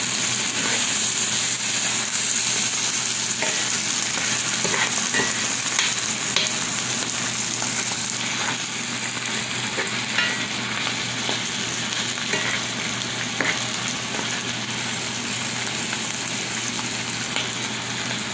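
Meat and vegetables sizzling steadily in a cast-iron skillet, stirred with a metal spoon that clicks and scrapes against the pan now and then.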